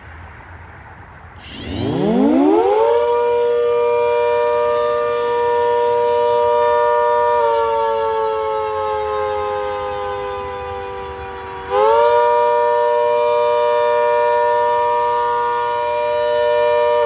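Mini Hurricane rotating siren on a pole winding up from a low growl to a loud, steady two-note wail. About halfway through, its pitch and volume sag slowly. Near the end they jump back up to full pitch.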